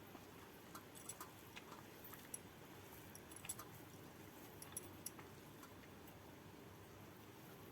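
Faint, scattered small clicks and soft squishes of a meal eaten by hand, with fingers working rice and crab curry on a plate and chewing.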